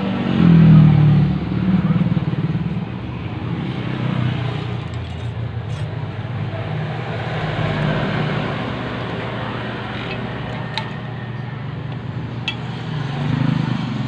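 An engine running steadily with a low hum. It swells louder with a short rise in pitch about half a second in, and swells again near the end.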